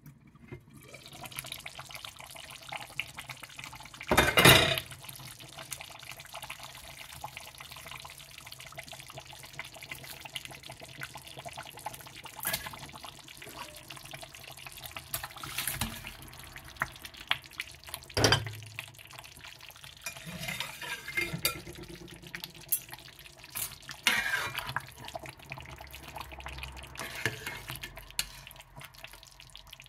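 Pot of tomato and fish stew simmering, a steady crackle of bubbling. There is one loud knock of metal on the pot about four seconds in, and a few lighter knocks later.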